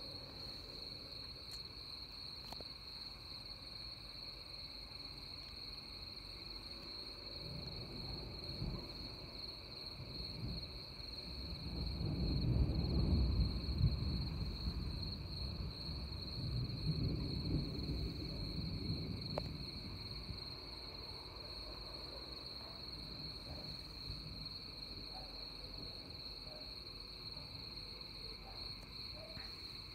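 A low rumble of thunder builds from about seven seconds in, peaks around thirteen seconds, swells again a few seconds later, then dies away. Crickets chirp steadily beneath it.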